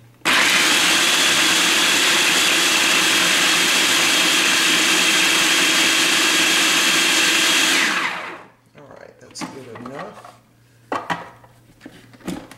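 Food processor motor grinding pecans. It starts abruptly, runs steadily and loud for about seven and a half seconds, then spins down with a falling pitch. A few short knocks follow near the end.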